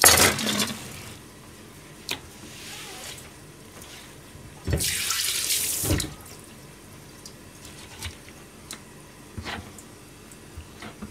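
Kitchen tap running briefly into a stainless steel sink: a short gush right at the start, then another lasting just over a second about five seconds in. Between and after them come scattered knocks and light clicks on the steel counter.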